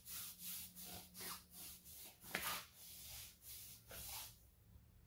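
A strip of cut t-shirt cloth, wet with protectant, is pulled back and forth like floss through a narrow gap in a three-wheeler's metal frame. The cloth rubs in faint, quick strokes, about three a second, and stops a little after four seconds.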